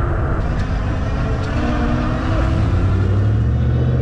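Wind rushing over the microphone on a moving fat-tire e-bike, with a low hum that rises slightly in pitch from about two and a half seconds in.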